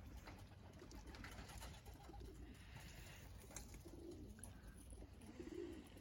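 Faint, low cooing of racing pigeons, with two soft coos about four and five and a half seconds in.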